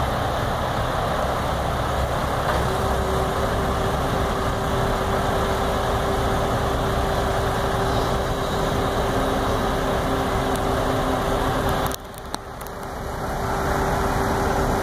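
Engine of a truck-mounted crane running steadily while it lowers a sign cabinet, with a steady whine joining about three seconds in. The sound cuts off suddenly about twelve seconds in and swells back up.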